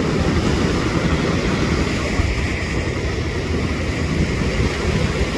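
Sea surf breaking and washing up a sandy beach, a steady wash of noise, with wind rumbling on the microphone.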